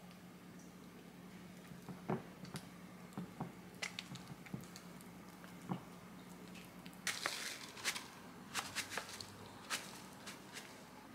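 Silicone spatula working a stiff butter-and-egg cookie dough in a glass bowl: soft squishes and scattered taps and scrapes against the glass, busier for a few seconds past the middle. A faint steady hum runs underneath.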